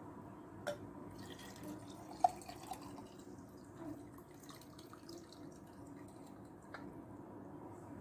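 A few small clicks or drips, with a sharper, louder one about two seconds in, over a low steady hum.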